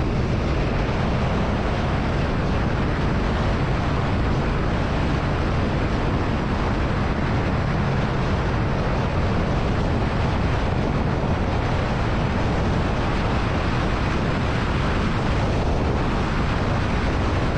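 Royal Enfield Shotgun 650's parallel-twin engine running steadily under way, with a constant low hum, buried in heavy wind noise on the microphone.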